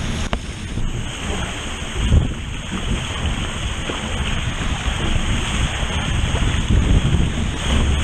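Loud wind buffeting the microphone, over water rushing and splashing past the hull of a Weta trimaran sailing at speed through spray. There is a stronger gust about two seconds in.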